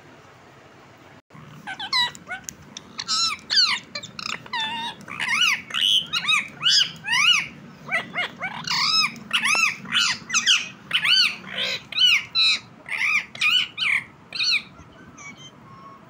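Indian ringneck parakeet calling in a rapid run of loud, high, arched calls, two or three a second, starting about a second in and stopping shortly before the end.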